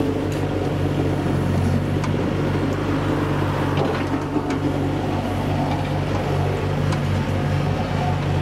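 A vehicle engine running steadily, a continuous low hum.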